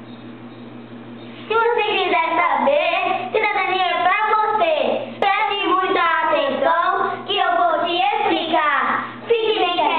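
Two young girls singing a song together, starting about a second and a half in, over a faint steady low hum.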